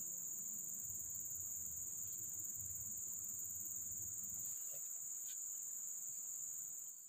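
Insects in the riverside forest droning steadily at one high pitch, with a low rumble under them that fades out about halfway through; the sound drops away right at the end.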